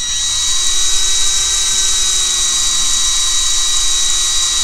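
Power drill running steadily as its bit drills out a rivet in a diecast metal toy body, a constant motor whine with a high hiss that sags slightly in pitch near the end as the bit bites.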